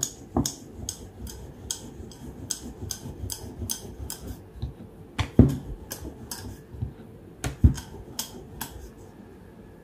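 Wooden rolling pin working dough on a round wooden rolling board: a run of light wooden clacks, about two or three a second, as the pin rolls and taps against the board. Two louder knocks come about halfway through and again near three-quarters of the way through.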